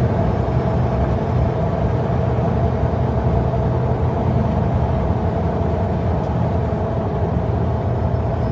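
Steady road and engine noise of a Jeep at highway speed, heard inside the cabin: a constant low rumble of tyres and engine with a steady hum over it.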